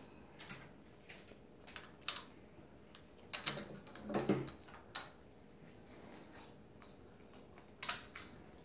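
Plastic Lego bricks being handled and pressed together, a series of light, irregular clicks and taps.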